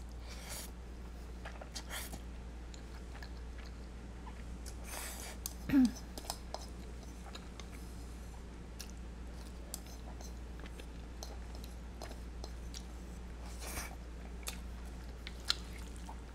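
Close-miked eating of creamy carbonara spaghetti: soft chewing and noodle slurps with small clicks of chopsticks on a bowl. One short voiced 'mm' about six seconds in, the loudest sound here.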